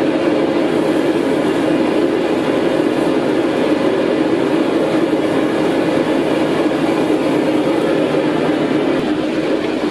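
Blacksmith's forge running with a steady, loud rushing noise, the fire kept going at welding heat.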